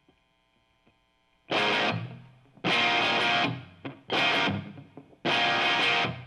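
Electric guitar striking four distorted chords as a song intro, each held under a second with short breaks between. A faint steady amp hum comes before the first chord, about a second and a half in.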